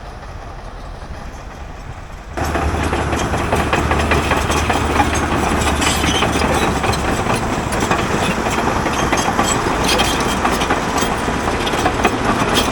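Heavy trucks' engines running with a low hum and rattling, jumping suddenly much louder about two seconds in.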